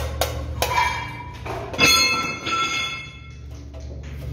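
Metal parts of a spot welding machine being handled. A few light clicks, then about two seconds in a metallic clank that rings on briefly with several clear tones, over a steady low electrical hum.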